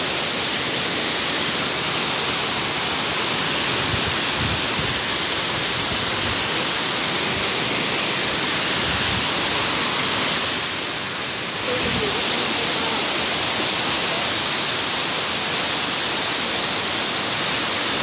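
Rushing water of a small mountain stream cascading over rocks: a steady, loud hiss. It dips slightly for about a second a little after ten seconds in.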